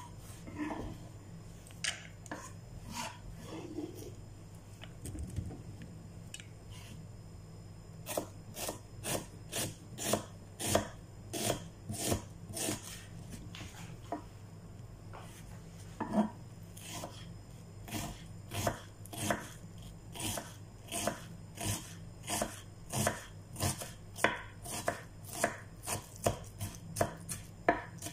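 Kitchen knife chopping an onion on a wooden chopping board. A few scattered taps come first, then a steady run of knife strikes on the board at about two a second, broken by a short pause midway.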